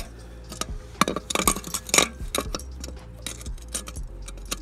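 A series of irregular sharp metallic clicks and clinks as a failed turbocharger off a Subaru WRX is handled and its compressor wheel pushed at by hand. The turbo is seized and won't spin. The clicks are thickest about one to two seconds in.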